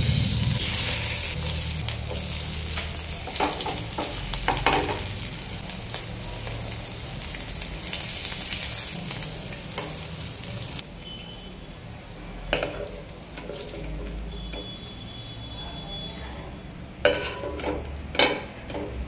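Whole boiled eggs sizzling as they shallow-fry in hot oil in a pan. The sizzle is loudest at first and eases a little past halfway, and near the end a perforated metal spoon clinks and scrapes against the pan a few times as the eggs are lifted out.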